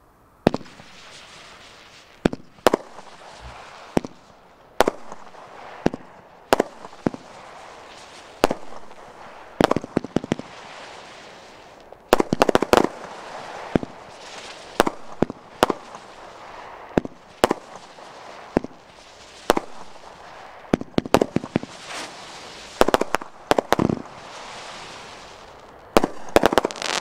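Megabanger Twilight consumer firework shooting flaming balls: a sharp shot every second or two, some in quick runs of two or three, with a steady hiss between shots.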